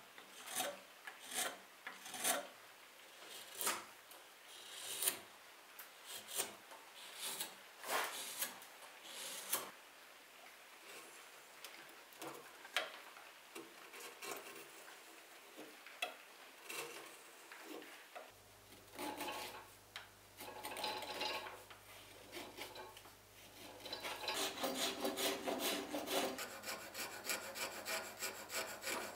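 Knife blade paring and scraping a wooden sabre grip clamped in a vise: irregular scraping strokes about once a second, turning into quicker, almost continuous scraping near the end.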